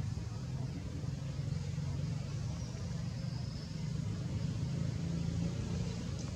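Steady low rumble of outdoor background noise, with a faint high-pitched sound in the middle.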